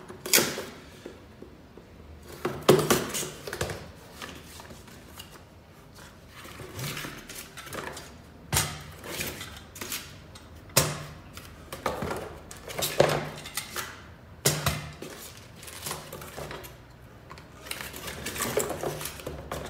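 Unboxing handling noise: a cardboard box being slit, opened and rummaged, with irregular knocks and clatter as hard plastic Thule roof-rack foot units are taken out and set down on a table.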